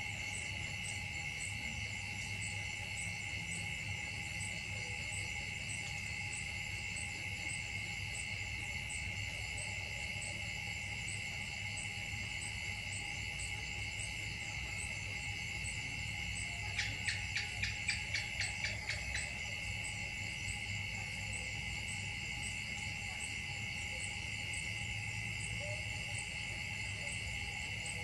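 A steady, layered chorus of insects, high-pitched and unbroken. About seventeen seconds in, a quick run of about a dozen sharp chirps lasts two seconds and stands out above it.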